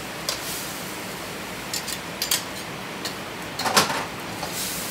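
Metal ladle and tongs knocking and scraping against a wok while stir-frying ground pork miso, over a steady hiss. There are half a dozen sharp clinks, the loudest clatter near the end.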